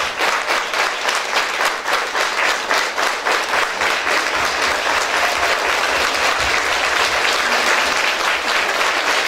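A large crowd applauding: steady, dense clapping from many hands.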